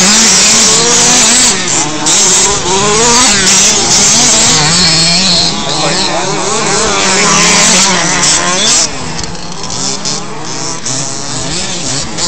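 Several radio-controlled off-road race cars running laps on a dirt track, their small motors whining and revving up and down over one another.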